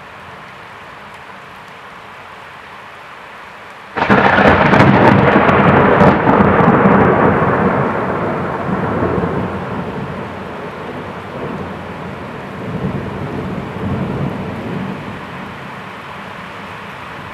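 Thunder: a sudden crack with crackling about four seconds in, then a long rumble that rolls and fades over the next ten seconds, swelling again twice near the end. Steady rain hiss underneath throughout.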